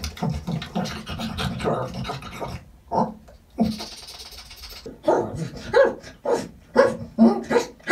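A man voicing an animated beaver: short, animal-like grunts and panting breaths made with his voice, in quick bursts. A breathy hiss comes a little before the middle, and the sounds come about two a second in the second half.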